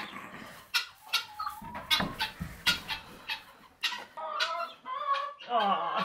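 Chickens clucking, with scattered sharp clicks and knocks in the first few seconds.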